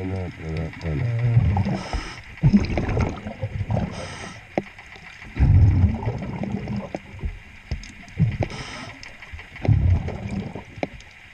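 Scuba diver breathing through a regulator underwater: a short hiss on each inhale followed by a low gurgling rush of exhaust bubbles, about three breaths. A muffled voice sounds through the regulator at the start, and a few small knocks come in between.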